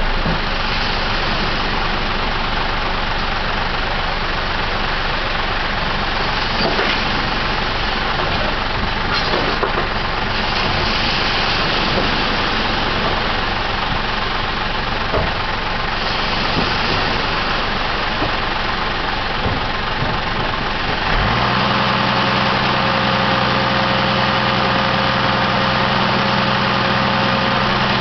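An engine running steadily at idle under a constant wash of breaking surf, its hum becoming more distinct about three-quarters of the way through.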